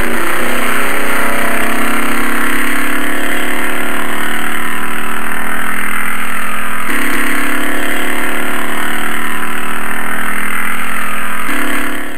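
Loud, steady vehicle engine sound effect, its pitch shifting slightly about seven seconds in and again near the end, fading out at the very end.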